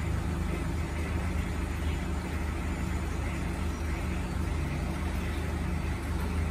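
Steady low mechanical hum of an aquarium air pump and filter running, with a constant hiss of air and water over it.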